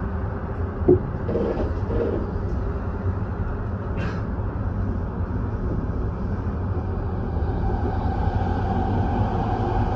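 Running noise inside the driver's cab of a JR Yamanote Line E235-series commuter train moving slowly: a steady rumble, with a short sharp click about a second in and a steady whine coming in near the end.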